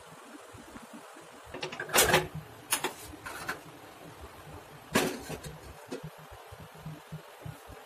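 Kitchen handling sounds: a few sharp knocks and clatters of cookware and utensils over a low background. The loudest come about two seconds in and again about five seconds in.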